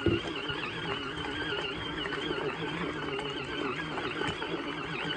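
Small portable mini washing machine running, its motor giving a steady wavering whine as it churns towels in water. A single knock right at the start.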